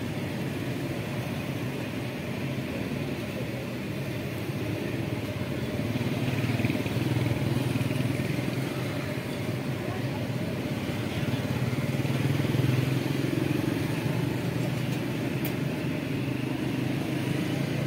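Street traffic: motorcycle and auto-rickshaw engines running and passing on the road in a steady hum, growing louder a couple of times as vehicles go by.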